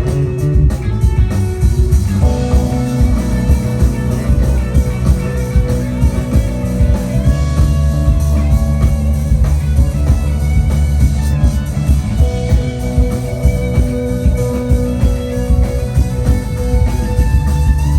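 Live rock band playing an instrumental groove: guitar with long held notes over electric bass and drums.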